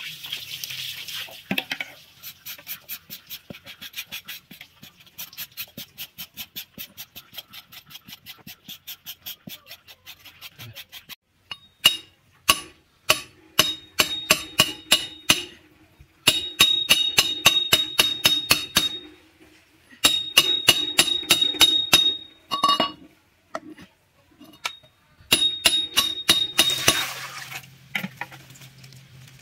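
Kitchen knife drawn again and again along a steel pipe to sharpen it: rapid scraping strokes with a metallic ring. The strokes run steadily at about three a second for the first ten seconds. After that they come in louder bursts with pauses between them. Near the end, water pours into an aluminium pot.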